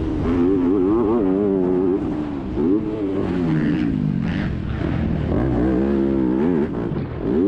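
Onboard sound of a four-stroke motocross bike's engine under race throttle, its note rising and falling again and again as the rider opens and closes the throttle through corners and over jumps.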